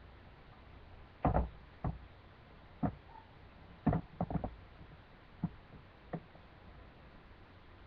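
A spoon knocking against a mixing bowl while stirring a thick flour-and-oil dough: about eight irregular knocks, several close together around the middle.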